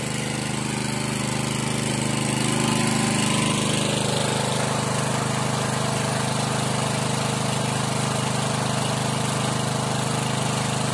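Small engine-driven water pump running steadily under load, pushing water down a well pipe to flush out the bore. It gets a little louder about two seconds in.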